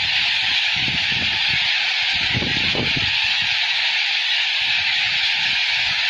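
A huge flock of corellas (white cockatoos) squawking loudly overhead, a dense, steady mass of high-pitched calls with no single voice standing out.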